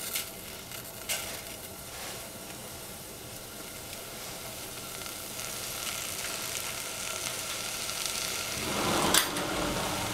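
Oyster mushrooms sizzling in a stainless steel saucepan over a gas flame, the hiss slowly growing as the pan heats. There are a couple of light knocks near the start as pieces are dropped in, and a louder burst about nine seconds in.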